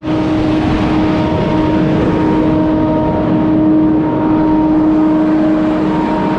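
Engine running at a steady speed to power a boom sprayer during a pressure and output test, a loud, even drone with a held pitch.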